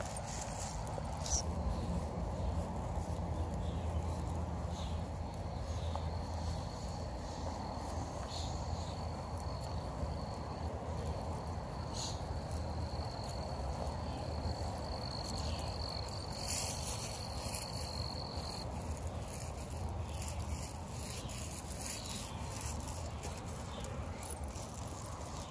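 An insect trilling on one steady high note for about twelve seconds, starting about six seconds in, over a low steady rumble and a few light clicks.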